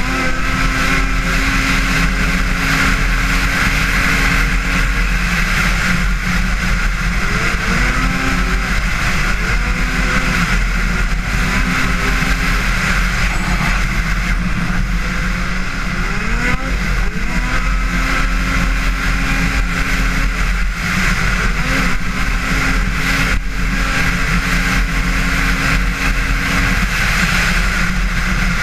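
Arctic Cat XF 8000 snowmobile's 800 cc two-stroke twin running hard at speed, with a steady rush of wind over it. The engine pitch dips and climbs back several times as the throttle is eased and reopened.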